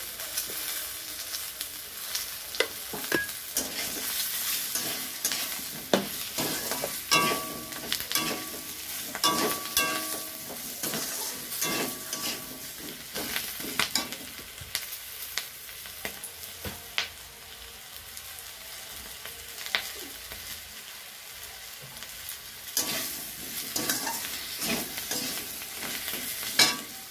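Potato wedges sizzling in hot oil in a metal wok, with a metal spatula stirring and scraping against the pan in repeated short strokes. The strokes thin out for a while in the middle, leaving the sizzle.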